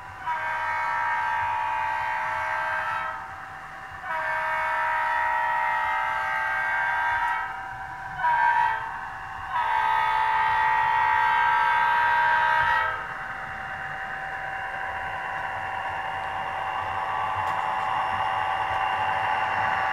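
HO-scale EMD SD40-2 model's onboard sound system blowing a multi-chime air horn in the grade-crossing pattern: long, long, short, long. After the horn it plays a steady diesel engine running sound that grows slowly louder as the locomotive approaches.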